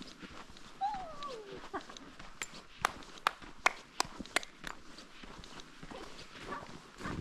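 Footsteps crunching on frozen snow, a run of sharp crunches about two a second, with a short falling whine about a second in.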